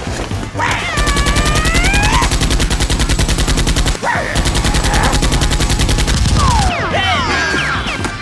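Rapid automatic gunfire in two long bursts, the second starting just after the first stops about four seconds in, with rising and falling cries over it.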